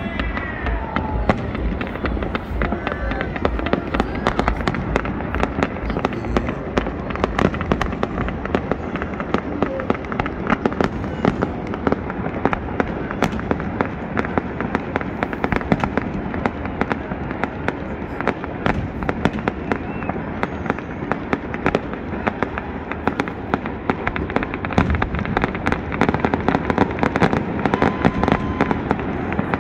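Aerial fireworks display: a rapid, unbroken string of pops, bangs and crackles.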